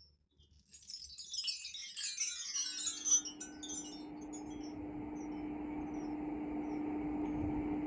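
Homemade brass-pipe mark tree swept once, its bars tinkling in a quick run that falls from the highest to the lower notes, then ringing out. As the chimes fade, a steady low hum comes in and slowly grows louder.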